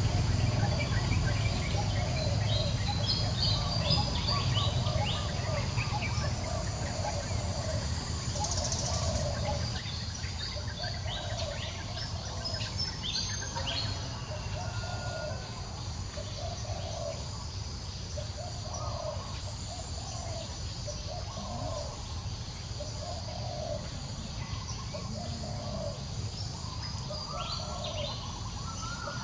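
Outdoor ambience with birds calling: a low call repeated roughly every second and a quarter, and scattered higher chirps in the first half. Under them runs a low rumble that is stronger in the first ten seconds.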